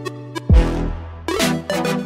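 Electronic music: steady synth notes with light ticks, then a deep bass hit about half a second in that opens a heavier section with synth chords.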